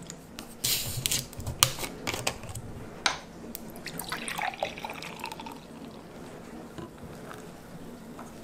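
A plastic bottle of Milkis carbonated milk soda being twisted open, with a short hiss of escaping gas and a few cap clicks. About three seconds in it is poured into a drinking glass, splashing, with the pitch of the pour changing as the glass fills.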